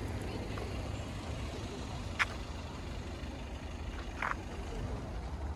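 Outdoor car-park ambience: a steady low rumble, with two short sharp clicks about two and about four seconds in.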